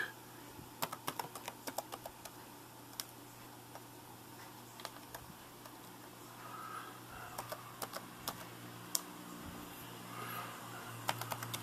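Replacement keyboard on a Lenovo ThinkPad T410 laptop, keys pressed one at a time in scattered light clicks as each key is tested after the keyboard swap.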